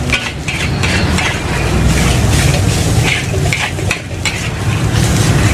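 Fried rice sizzling in a large steel wok while a long metal spatula stirs and tosses it, scraping and clinking against the pan again and again, over a steady low hum.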